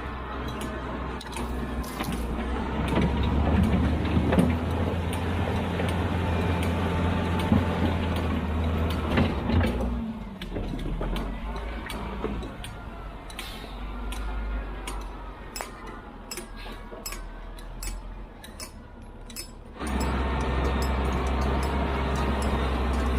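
Heavy construction machinery working: a steady low diesel engine drone with scattered metallic clanks and squeaks. The sound changes abruptly twice, about ten and about twenty seconds in, as one clip of machinery gives way to another.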